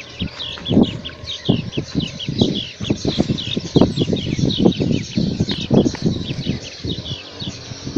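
Small wild birds chirping in a busy chorus of quick falling notes, over irregular low thumps and rustles close to the microphone.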